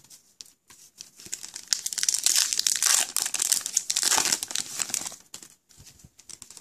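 Shiny foil wrapper of a hockey trading-card pack being torn open and crinkled by hand, a dense crackle from about a second in to about five seconds in. Light clicks of card handling before and after.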